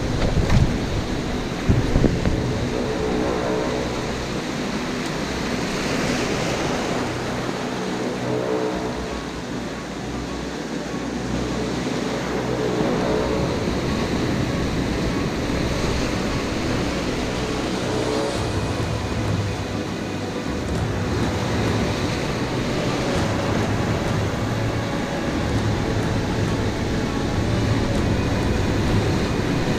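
Ocean surf breaking and washing over shoreline rocks, swelling and ebbing every few seconds, with wind rumbling on the microphone. Two brief knocks stand out near the start.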